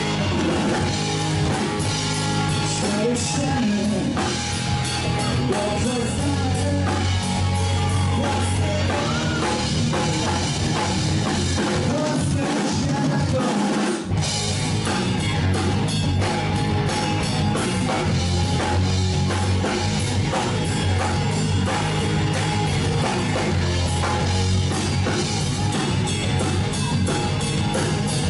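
Live blues-rock band playing: electric guitar, bass guitar and a drum kit, with a brief drop in the bass just before the middle.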